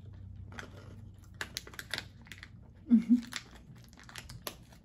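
Small crisp biscuits crunching as they are chewed, with the plastic snack packet crinkling in the hands: a scatter of short, sharp crackles. A short closed-mouth hum about three seconds in.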